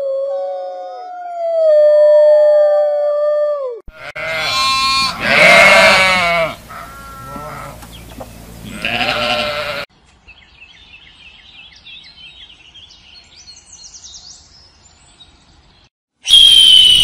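Overlapping drawn-out animal howls in the first few seconds, then sheep bleating loudly several times. After that come faint high chirps, and near the end a loud, high, falling raptor scream.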